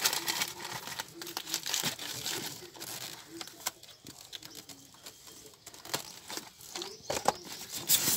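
Rustling and crinkling of a cardboard box and its packing as hands open the flaps and handle the contents, with scattered light clicks and knocks.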